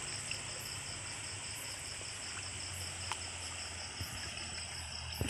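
Crickets chirping in a steady, rapid pulse of about five chirps a second, over a continuous high insect whine. A single faint click about three seconds in.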